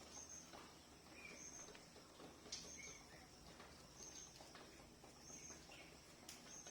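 Near silence, with a faint high bird chirp repeating about every second and a quarter and a couple of light clicks.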